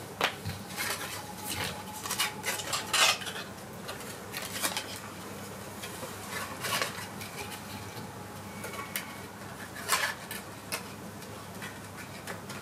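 Playing cards being handled and laid flat onto a house of cards: a run of light, sharp clicks and taps, busiest in the first few seconds and again around ten seconds in.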